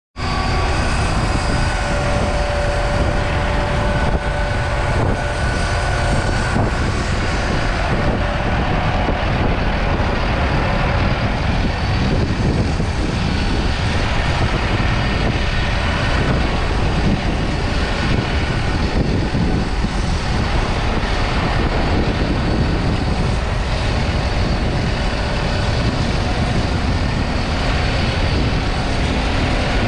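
Massey Ferguson 5S 145 tractor's 4.4-litre four-cylinder diesel engine running steadily.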